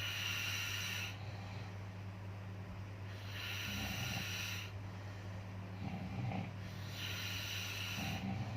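Slow, regular snoring: three breaths about three and a half seconds apart, each a hissing breath with a short low rasp, over a steady low hum.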